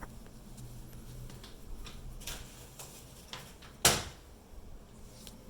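A few light clicks and one sharp knock about four seconds in, the sound of objects being handled or set down.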